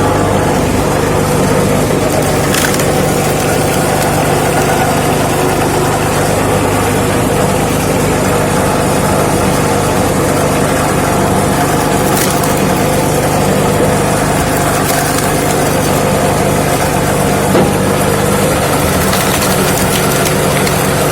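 Lifan 6.5 hp single-cylinder petrol engine running steadily, driving a homemade screw-cone log splitter through belts and pulleys. A couple of sharp cracks come as wet logs split on the cone.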